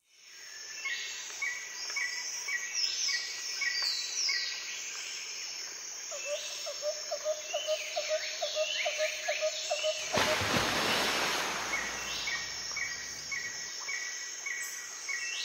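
Bird calls and insect chirps fading in from silence: rapid repeated chirps, falling whistled sweeps and a pulsing trill. About ten seconds in, a hissing rush swells for a few seconds. No engine or road noise is heard.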